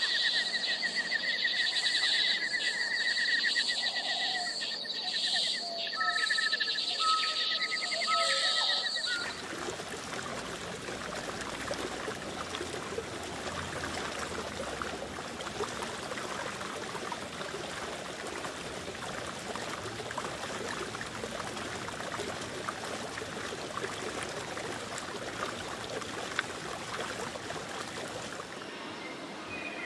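Forest ambience: insects buzzing and birds chirping for about nine seconds, then an abrupt change to a steady, even hiss.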